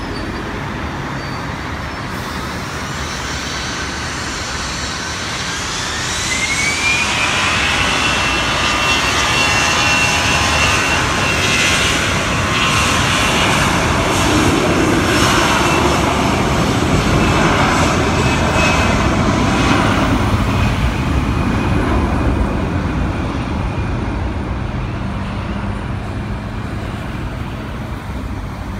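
Jet airliner's engines spooling up on the runway: a whine rising in pitch about six seconds in, then loud jet noise that peaks in the middle and slowly fades as the plane moves away.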